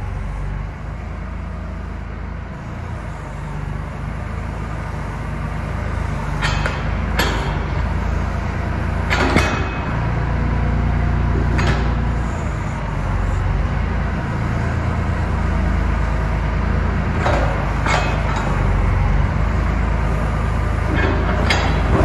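Kubota L39 backhoe's diesel engine running steadily, with several sharp metal clanks and knocks spread through as the bucket and toothed steel thumb grab and drop a steel channel offcut and wooden blocks on a concrete floor.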